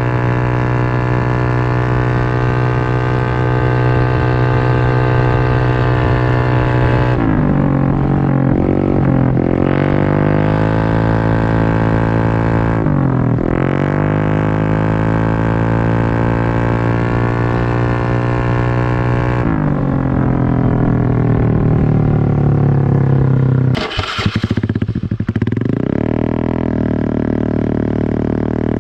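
Stock small motorcycle engine running through an aftermarket 'samlong' racing exhaust, held at high revs with a steady drone. The revs dip and pick up again a few times, and near the end the throttle is let off with a short crackle before the note settles lower.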